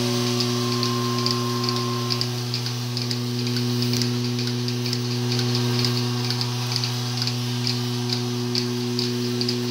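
Pipeline milking machine running its automatic wash cycle: the vacuum pump's steady hum with the pulsators clicking regularly, a few times a second.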